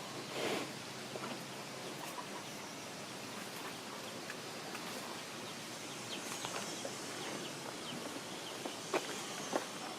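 Rural outdoor ambience: a steady hiss with faint scattered bird calls, a brief whoosh about half a second in, and two sharp clicks near the end.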